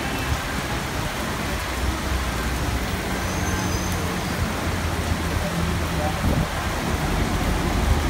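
Heavy rain pouring down as a dense, steady hiss, over the low, steady hum of motor traffic on a wet street.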